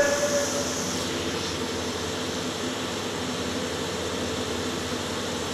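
Steady mechanical hum of test-hall machinery during a hydrostatic pipe burst test. A held tone fades out in the first half second.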